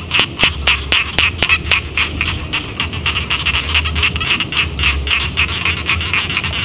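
A chorus of rice-field frogs croaking: rapid, overlapping short calls, several a second, keeping up without a break.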